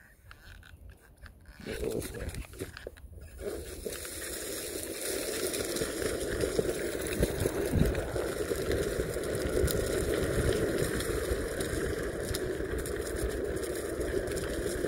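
Electric skateboard's Cloud Wheels rolling over dry leaf litter and a dirt trail. The steady rolling noise starts about two seconds in, grows louder over the next couple of seconds and carries a few knocks from the rough ground.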